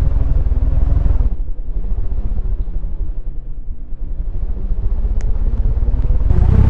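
Ceiling fan running far over its normal speed: a loud low rumble with a wavering hum. It eases off about a second and a half in, then builds back up and is loudest near the end.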